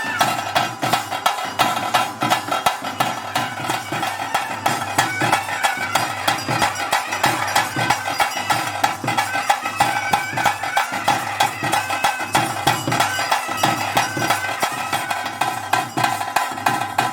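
Live traditional ritual music: a nasal reed pipe plays a sustained melody over fast, dense drumming.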